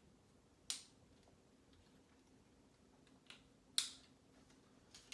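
Lego pieces clicking as they are handled and pressed together: a few sharp clicks, one under a second in and a louder pair a little past three seconds, over a faint steady hum.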